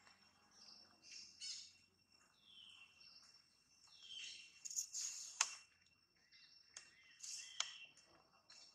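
Forest ambience: scattered short high-pitched chirps and squeaks from animals, some gliding in pitch, with two sharper squeaks about five and a half and seven and a half seconds in, over two steady high-pitched tones.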